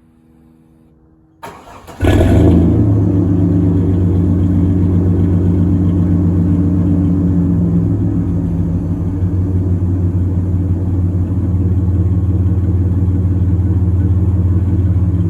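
1996 Chevy S10's 4.3 L Vortec V6 cranking briefly and starting about two seconds in, then idling steadily and loudly. It now runs smoothly, its corroded distributor cap and rotor cleaned.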